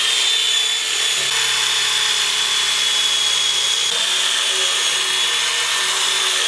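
Electric drill spinning a wire cup brush against a cast iron griddle, scouring off light surface rust. The motor runs at a steady whine over the scratch of the wire bristles on the iron.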